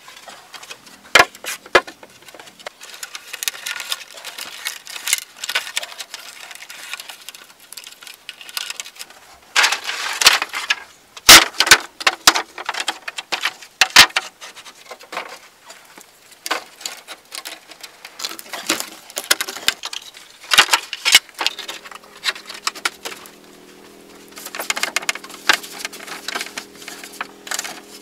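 Split green bamboo slats knocking and clattering against each other and the bamboo bed frame as they are laid across it and tied down, in quick irregular clicks and knocks that come in busier bursts.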